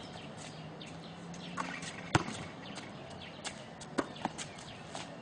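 Basketball bouncing on an outdoor court as it is dribbled: a run of sharp, irregular smacks, about two or three a second, the loudest about two seconds in.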